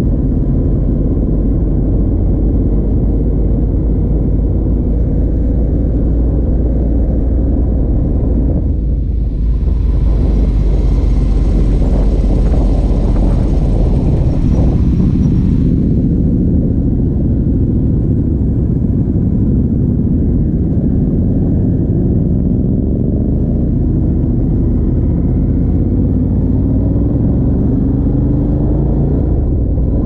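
Ducati Multistrada 1200 S DVT's Testastretta L-twin engine through a Termignoni racing exhaust, running under way with its pitch slowly rising and falling as the bike rides. A rushing hiss rises over it from about nine seconds in and drops away about seven seconds later.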